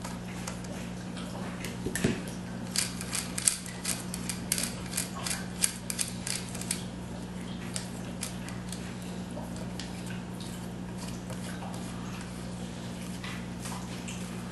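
Small metal clicks and clinks of a flat-tip screwdriver working the takedown screw out of a Mossberg 352KA rifle, with one louder knock about two seconds in. The clicks come in a dense run through the first half, then sparser, over a steady low hum.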